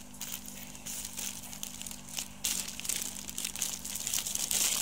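Purple plastic poly mailer bag crinkling as hands grip it and pull it open, in irregular bursts that get louder near the end.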